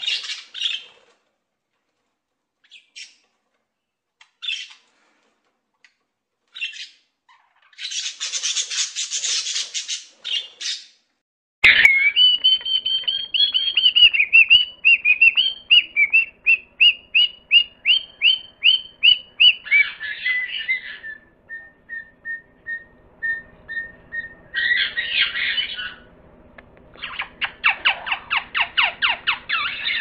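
Sun conures calling: short, harsh screeching squawks with gaps between them. After a sudden break, a long run of evenly repeated shrill chirps follows, then more harsh squawks and a fast chattering series near the end.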